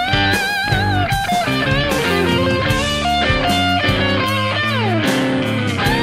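Epiphone Dot semi-hollow electric guitar playing a blues lead over a band backing with a steady beat and bass. Held notes waver with vibrato, and a long note slides down in pitch about five seconds in.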